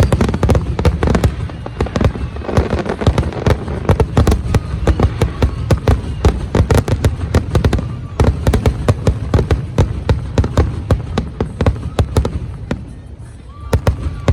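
Fireworks going off in a dense barrage: many sharp bursts a second over a continuous low rumble, thinning out briefly near the end.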